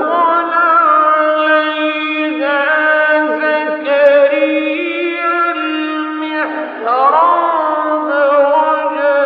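A man reciting the Quran in the melodic mujawwad style, holding long ornamented notes with wavering vibrato and pitch slides. He draws a new phrase about two-thirds of the way through.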